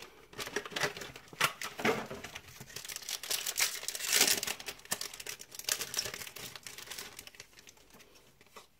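Plastic-foil trading-card booster pack wrapper crinkling and being torn open by hand, with the loudest rip about four seconds in, then quieter handling toward the end.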